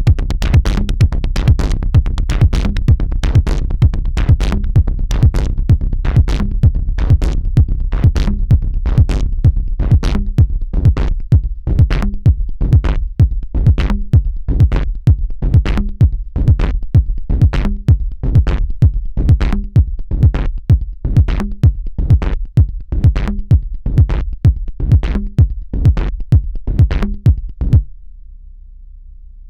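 Electronic dance music with a steady drum-machine beat that stops shortly before the end, leaving a faint low tone.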